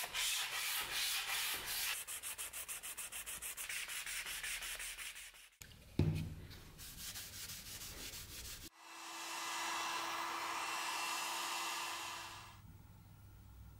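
Quick rubbing strokes of an abrasive on a steel knife blade, several a second, for the first five seconds or so. A knock about six seconds in. Then a heat gun blows steadily for about four seconds with a low hum, drying the blade.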